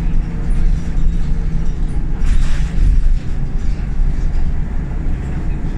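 Scania L94UB single-deck bus's diesel engine running with a steady drone and rumble, heard from inside the passenger saloon while the bus drives along. About two seconds in there is a brief hiss.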